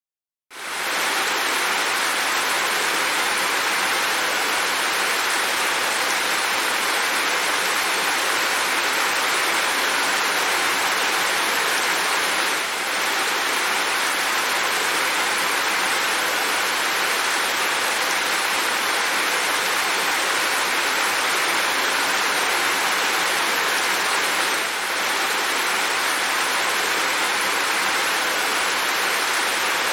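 Steady rain falling, an even, dense hiss. It starts abruptly about half a second in and dips briefly twice.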